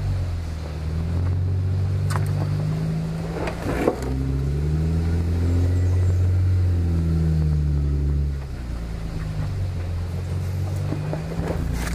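Off-road vehicle's engine pulling over a rough, hilly dirt trail, its revs rising and falling several times, with a sharp knock just before four seconds in. About eight and a half seconds in, the engine drops to a lower, steady note.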